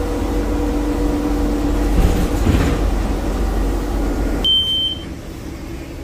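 Inside a moving city bus: steady engine and road rumble with a low hum. The rumble drops off suddenly about three-quarters of the way through, and a short high beep sounds at the same moment.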